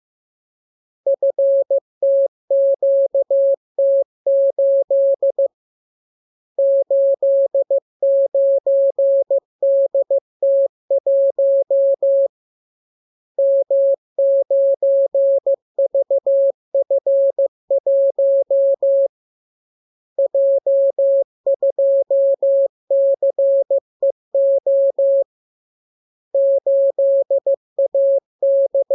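Morse code (CW) sent as a single steady-pitch tone keyed on and off in rapid dots and dashes. The characters come in groups, with a pause of about a second between groups, as in a practice radiogram of the characters being learned.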